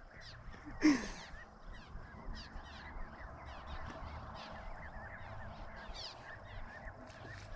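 A family of geese calling: one honk about a second in, then a steady run of short, thin, high peeps, as from goslings.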